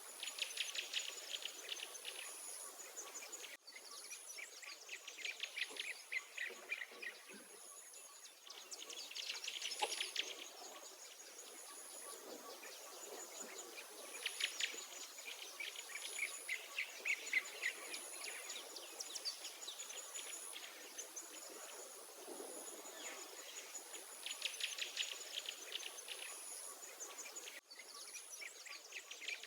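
Wild songbirds singing outdoors: bouts of rapid chirping trills a few seconds long, one after another, with a thin, very high note repeating about once a second behind them. The sound briefly cuts out three times.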